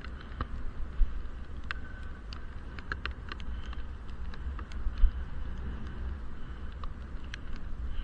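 Bicycle ride in the rain heard from inside a helmet-mounted action camera's waterproof case: a muffled low rumble with scattered ticks and taps, and two sharper knocks about one and five seconds in.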